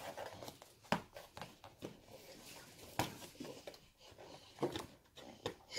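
Faint, irregular taps, clicks and rustles of a cardboard toy box being handled.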